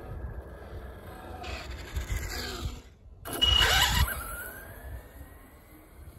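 RC drag car speeding past close by, its motor and tyres loudest for about a second around three and a half seconds in, with a falling pitch as it goes by, then fading away.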